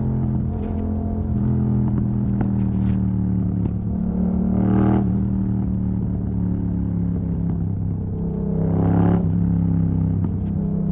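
Yamaha MT-07 parallel-twin engine running loud through an exhaust with its dB killer removed, holding fairly steady revs. The sound swells briefly with throttle about five seconds in and again about nine seconds in.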